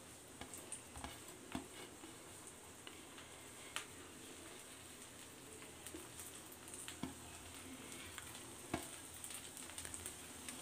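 Egg omelette cooking in a frying pan on a gas stove: a faint, steady sizzle with a few small clicks and pops here and there.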